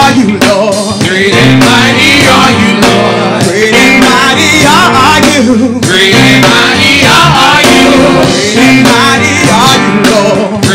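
Live praise and worship music: singing over instrumental accompaniment with sustained bass notes.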